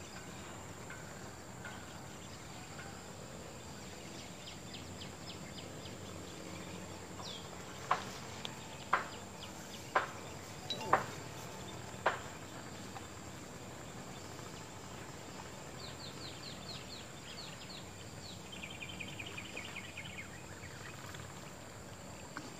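Outdoor ambience of birds and insects: a steady high insect drone underneath, with a bird giving five short, sharp falling whistles about a second apart near the middle, and quick trilled and ticking calls before and after.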